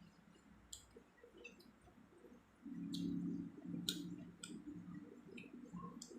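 Close-miked eating: sharp wet mouth clicks and smacks scattered throughout, with chewing. From about a third of the way in there is a louder low steady hum.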